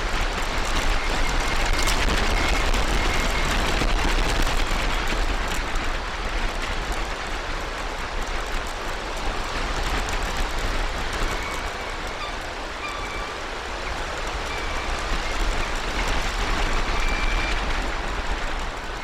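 Steady rushing outdoor noise on the nest-cam microphone with a low rumble underneath, and a few faint short chirps about two seconds in and again later on.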